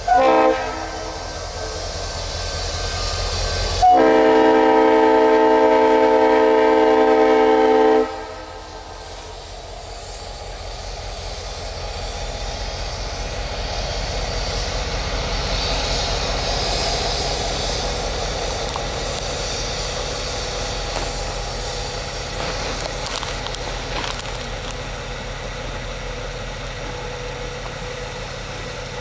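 Norfolk Southern diesel locomotive sounding its air horn: a short blast at the start, then one long steady blast of about four seconds. The horn stops and the diesel engine rumble is left, swelling as the locomotive passes and then slowly fading.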